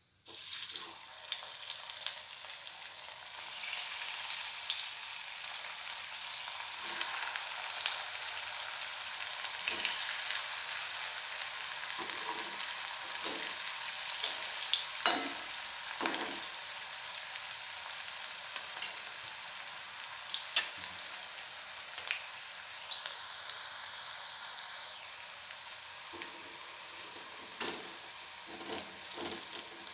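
Medu vadas deep-frying in hot oil in a kadhai: a steady sizzling hiss that starts suddenly as the batch goes into the oil, with scattered pops and clicks.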